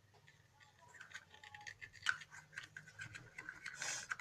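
Homemade slime being worked and stirred by hand, giving a run of small sticky clicks and crackles, with a short hiss just before the end.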